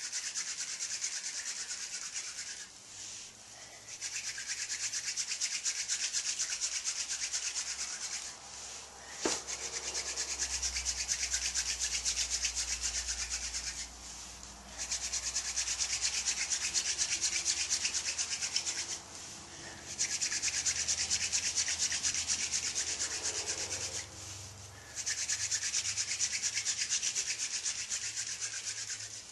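Hand-drill friction fire: a red osier spindle spun back and forth between the palms, grinding into a cedar hearth board with a fast rubbing rasp. It comes in runs of about five seconds, with short pauses between them, and there is one sharp click about nine seconds in.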